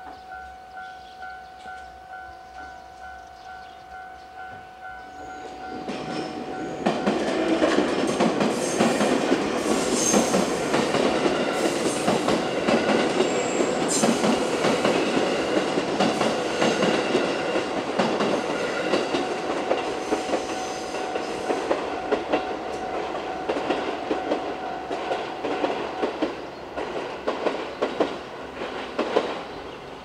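A Japanese level-crossing warning bell rings in a steady repeating pattern. From about six seconds in, a JR West 221 series six-car electric train passes loudly, its wheels clattering over the rail joints. The bell stops a few seconds before the end while the train's clatter goes on.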